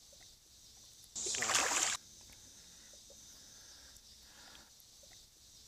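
Fishing reel's drag buzzing for just under a second as a hooked carp runs and pulls line off. It starts and stops abruptly about a second in.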